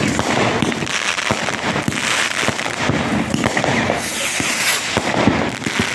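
Fireworks display going off: a rapid, continuous barrage of bangs, pops and crackles.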